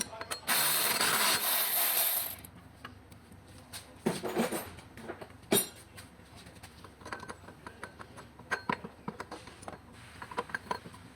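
Hand tools clinking, scraping and knocking on engine parts during a car engine strip-down, with a loud hiss that starts about half a second in and lasts nearly two seconds, then a sharp clank a little later.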